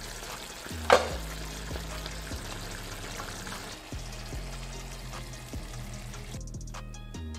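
A serving spoon scoops saucy chicken and vegetables out of a pan onto a plate, with a sharp knock about a second in. Background music plays under it.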